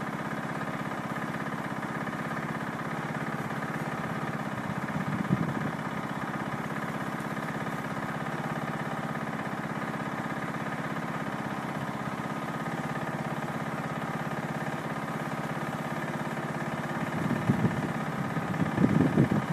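A steady machine drone like an idling engine, with louder rough low bursts about five seconds in and again near the end.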